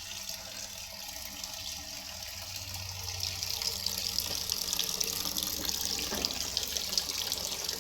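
Water running or pouring steadily, a continuous splashing hiss that grows louder over the first few seconds.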